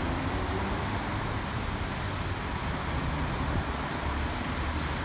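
Steady outdoor city noise in a summer thunderstorm: an even hiss of rain and traffic, with wind rumbling on the microphone.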